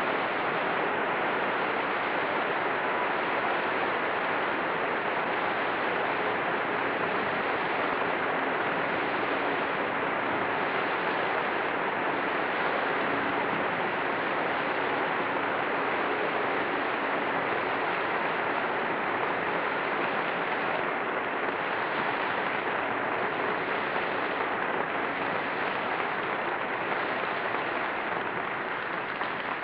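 Opera-house audience applauding steadily in a long ovation, beginning to die away at the very end, heard on an old live recording with dull, muffled highs.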